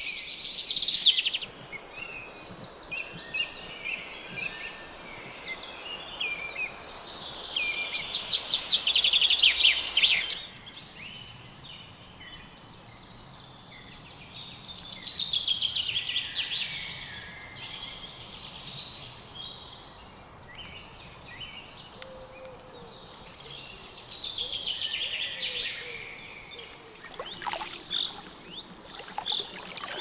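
A songbird sings loud, rapid trilled phrases two to three seconds long, repeated every seven seconds or so. Other birds chirp more faintly between the phrases.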